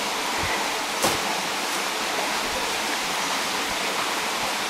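Steady rushing of a nearby creek, an even hiss with no pitch, with a single sharp click about a second in.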